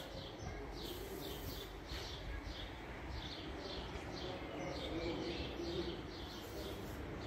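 A small bird chirping over and over, short high chirps about three a second, over a steady low rumble of street noise.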